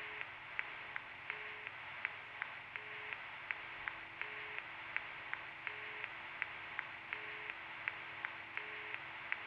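A steady run of small ticks, about two to three a second, with a short low beep repeating about every second and a half over a faint steady tone.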